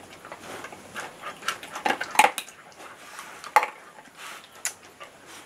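A dog eating from a food bowl: irregular clicks and knocks of chewing and the bowl being nudged, a few sharper ones about two seconds and three and a half seconds in.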